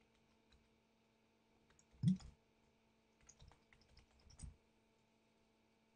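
Scattered clicks of computer keys being typed. There is a louder thump about two seconds in and a few more clicks between three and four and a half seconds, over a faint steady hum.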